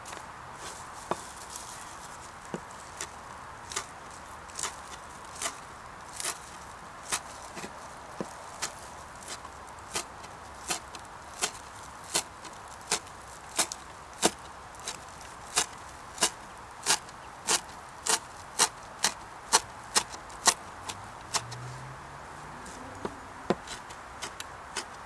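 Hand-forged steel herb chopper chopping parsley, its blade tapping sharply on the cutting board with each stroke. The taps come about once a second, quicken to about two a second, then pause briefly near the end before resuming.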